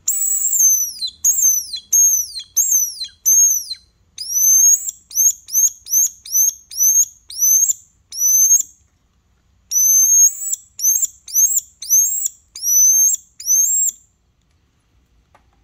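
Handmade tube whistle, a hunter's call, blown in a quick run of about twenty shrill, high chirps. Each chirp sweeps up and then falls away, with a short break a little past halfway.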